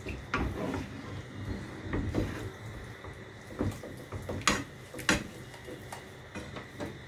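A spatula stirring and scraping thick white sauce of butter-flour roux and milk in a non-stick frying pan, with scattered clicks and knocks of spatula against pan; two sharp knocks about four and a half and five seconds in are the loudest.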